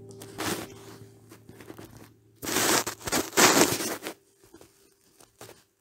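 The last acoustic guitar chord rings out and fades, while three bursts of rustling, crinkling noise come and go, the two loudest close together past the middle.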